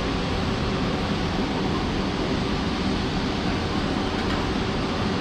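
Automatic karipap (curry puff) making machine running steadily, a continuous mechanical hum from its motor-driven rollers and forming wheels.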